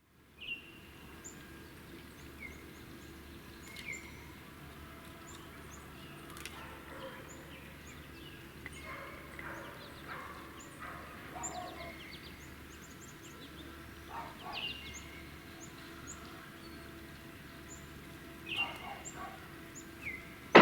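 Small songbirds chirping: scattered short high chirps and a few brief falling call notes, over a faint steady low hum.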